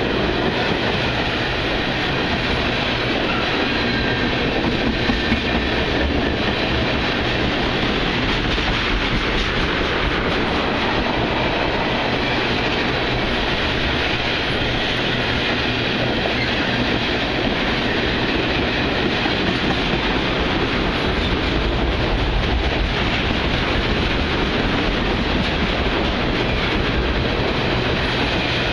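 Union Pacific freight train of oil tank cars rolling past, its wheels clattering steadily over the rails.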